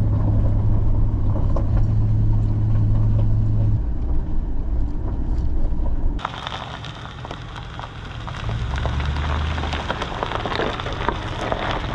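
Tow vehicle's engine running steadily at low speed with a low hum. About six seconds in the sound changes abruptly to a dense crackling, crunching noise over a quieter engine hum.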